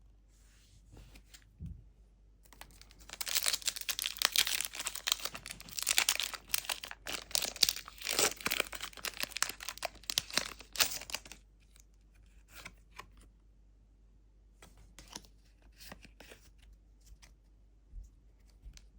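Foil wrapper of a Pokémon booster pack being torn open and crinkled for about nine seconds, then a few faint soft ticks as the cards are handled.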